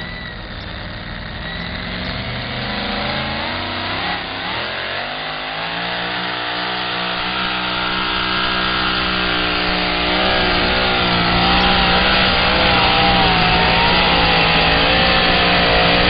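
Two-wheel-drive pulling truck's supercharged, alcohol-burning engine at full throttle, dragging the weight sled: the revs climb over the first several seconds, then hold high with a wavering pitch, growing louder as it goes.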